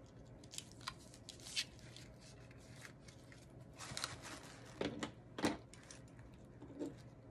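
Packing-handling noise: scattered short rustles of an organza gift bag and tissue paper as a bar of soap is slipped into the bag and set into a tissue-lined box, with a few light knocks, busiest about four to five and a half seconds in.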